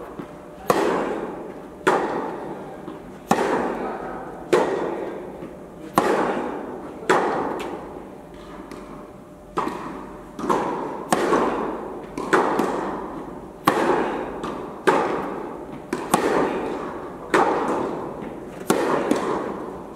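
Tennis ball struck back and forth in a rally, racket hits and ball bounces coming about once a second. Each pop rings out in the echo of the large indoor tennis hall.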